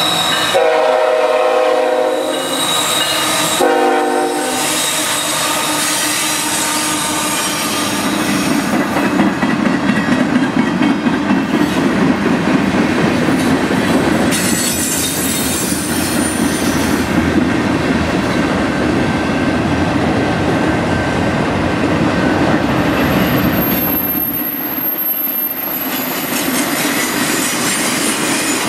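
CN freight locomotive's air horn sounding two blasts, a long one of about three seconds and then a short one. Then the freight cars roll past with a steady loud rumble and wheels clacking over the rail joints, and a thin high wheel squeal comes in near the end.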